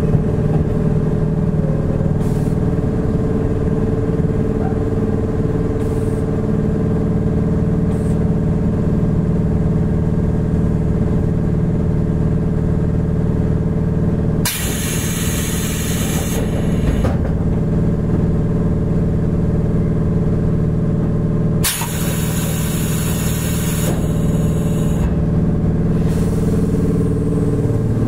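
Inside a Toyohashi Railway 1800 series electric train: a steady low hum with a few steady tones, broken twice by a hiss lasting two or three seconds, about halfway through and again some seven seconds later.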